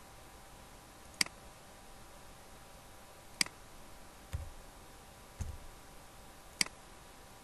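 Computer mouse clicking three times, each a single sharp click. Between the second and third clicks come two duller, low taps a second apart: keys struck while typing a short word.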